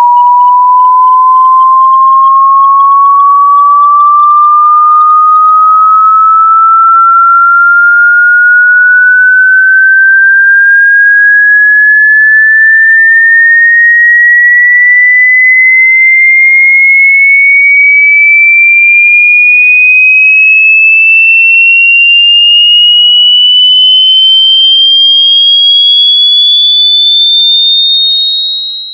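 Hearing-test frequency sweep: a single loud, pure electronic tone climbing slowly and steadily in pitch, from a mid-range beep to a high whistle.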